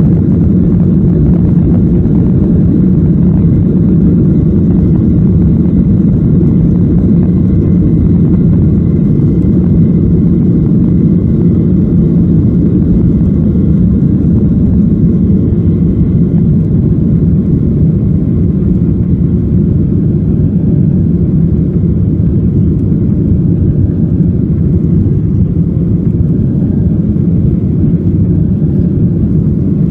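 Boeing 737 jet airliner's engines at takeoff power, heard from inside the passenger cabin as a steady, loud low rumble through the takeoff roll and liftoff.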